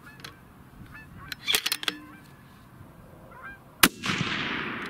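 A few quick metallic clicks, then a single shot from a 6.5 Creedmoor bolt-action rifle fitted with a muzzle brake, about four seconds in, followed by a long echo that rolls off and fades.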